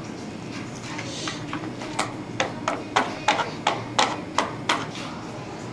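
Chopsticks knocking against a paper instant-noodle cup while stirring noodles: about ten quick, sharp taps over roughly three seconds, starting about two seconds in, over a steady low room hum.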